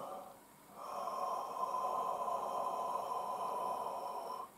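A man's long, deep breath, about three and a half seconds of steady airy rush starting about a second in, followed by a short pause and the start of another breath near the end.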